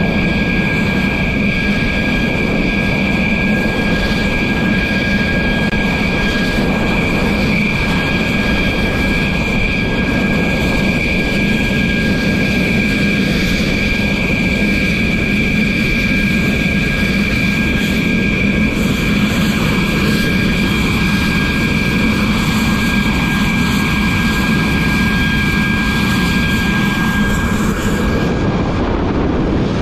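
Jet engines running steadily: a constant high-pitched whine over a low rumble.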